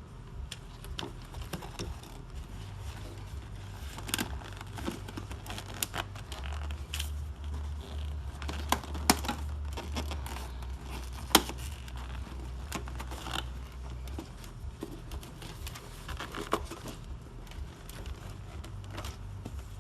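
Hand work on a plastic truck center console as its stapled-on leather upholstery is taken off: scattered clicks, scrapes and crinkling of staples and material being pried and pulled loose. A few sharper clicks come in the middle, the loudest just past halfway.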